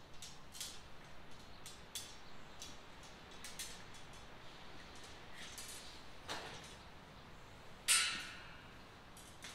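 Scattered light clicks and scrapes as the rods of a new octagon kennel are adjusted by hand, with one sharper, louder knock about eight seconds in.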